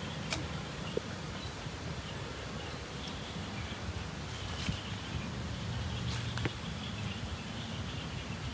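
Outdoor ambience: a steady low background rumble with faint high chirping and a few light clicks.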